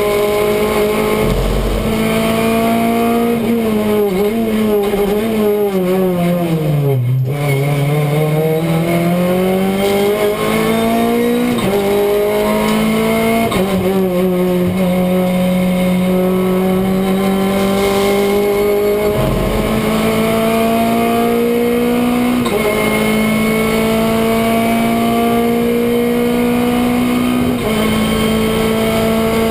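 Renault Clio Cup race car's four-cylinder engine at racing revs, heard from the cockpit. The engine note falls steadily for the first seven seconds or so, then climbs again, dropping sharply at each of four upshifts as the car accelerates back up through the gears.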